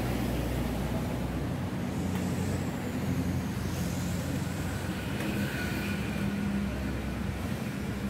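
Road traffic as a steady low drone, with a faint high whine about five seconds in.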